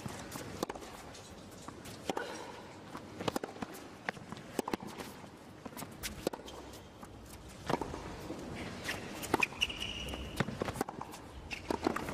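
Tennis rally on a hard court: sharp racket-on-ball strikes and ball bounces every second or so, with players' footsteps on the court between them.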